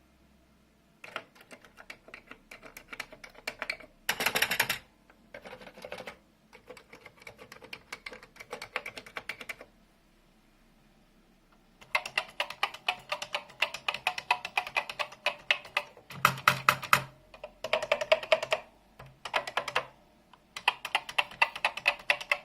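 Commodore VIC-20 mechanical keyboard being typed on in fast bursts of clattering key clicks. There is a pause of about two seconds around ten seconds in, and the typing after it is louder.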